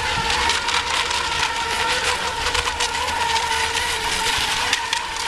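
Electric motors of radio-controlled racing boats whining steadily as they run the course, over a rushing hiss with many small splashy crackles.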